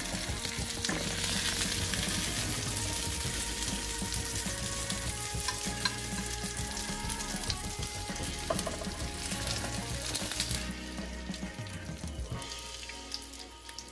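Beef steaks sizzling in butter in a nonstick grill pan, with occasional clicks of tongs and a fork as the pieces are lifted out. The sizzle dies down about ten seconds in.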